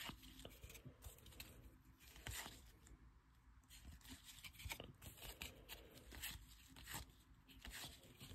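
Faint, irregular soft swishes and light clicks of paper trading cards being slid off a stack and flipped by hand, one card after another.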